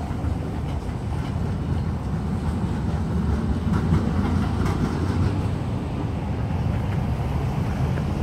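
Electric trams running along street track, a steady low rumble that gets a little louder around four seconds in.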